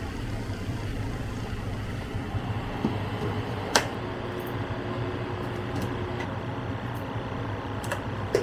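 Steady low mechanical hum, with one sharp click a little under four seconds in and a few faint ticks.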